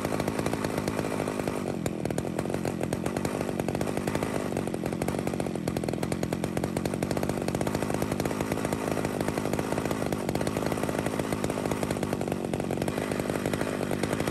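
Two-stroke chainsaw engine running at a fast idle near 3,000 RPM, steady throughout, while its low-speed mixture screw is turned in and out to find the fastest idle speed.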